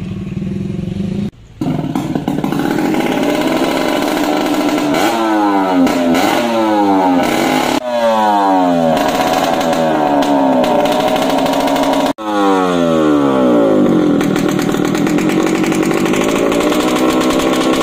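Motorcycle fitted with a loud aftermarket open 'knalpot brong' exhaust, an exhaust that does not meet the legal technical specification, being revved hard again and again, its pitch climbing and falling with each blip. The sound cuts out abruptly a few times.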